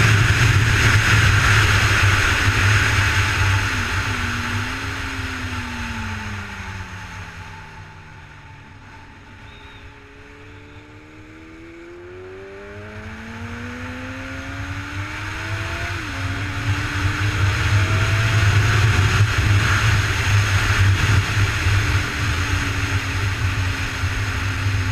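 Honda CBR1000RR Fireblade's inline-four engine on track, heard from an onboard camera. The engine note falls and the sound gets quieter as the bike slows through a corner, then the revs climb again as it accelerates out onto the straight. Heavy wind noise at the faster stretches.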